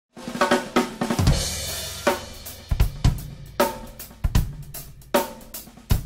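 Acoustic drum kit played: a quick fill of ringing tom hits, then a crash cymbal with a bass drum hit about a second in. After that comes a slow, steady beat of bass drum and snare strokes.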